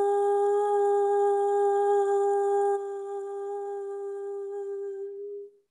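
A woman's voice holding one long hummed note at a single unwavering pitch, a meditative toning tone. It drops in loudness about three seconds in and fades out just before the end.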